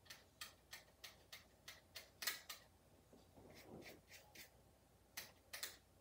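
Faint, quick ticks from a small paintbrush dabbing watercolor paint, about three a second, with a soft brushing stroke about three and a half seconds in and a few more ticks near the end.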